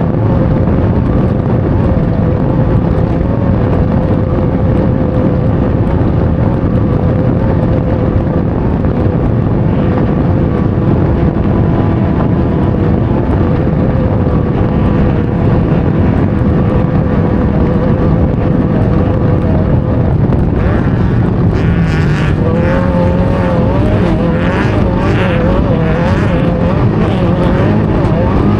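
Off-road race car's engine running hard at a steady speed, heard onboard over loud road and wind noise. In the last several seconds the revs rise and fall, with repeated knocks and rattles from the car jolting over rough ground.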